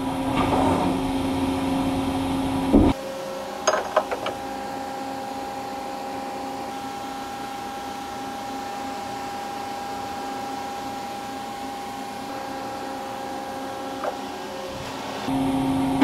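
Steady hum of a CNC machining centre that cuts off sharply about three seconds in, leaving a quieter steady hum with a few clicks. The louder machine hum comes back near the end with knocks of a tool holder being handled.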